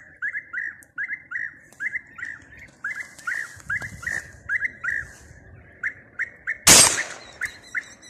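European bee-eaters calling, a quick run of short rolling calls, about three a second. A loud brief rush of noise breaks in just before the end.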